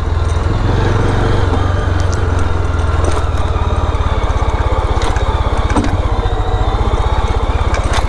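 Motorcycle engine running at low revs with an even pulsing beat, the bike rolling downhill in gear with no clutch and no throttle, held back by engine braking.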